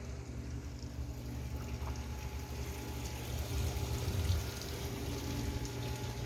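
Seawater sloshing and washing against a breakwater, with wind rumbling on the microphone and a faint steady hum under it.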